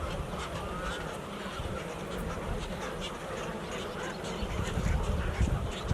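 A colony of birds calling over one another, many short calls overlapping, over a low uneven rumble.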